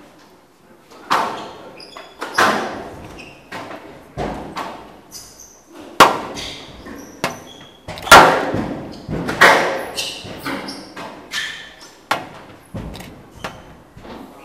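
Squash ball struck back and forth in a rally, racket hits and front-wall and glass-wall bangs about once a second, each with a short echo in the hall. Shoes squeak briefly on the court floor between the strikes.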